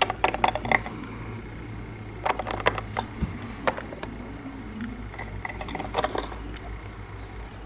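Handling noise: scattered light clicks and taps in small clusters as small plastic toy figures and the handheld camera are moved about, over a steady low hum.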